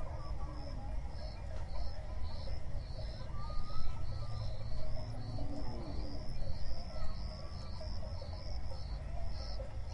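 Insects chirping in an even, quick repeating pulse over a steady low rumble, with a few faint thin whistles.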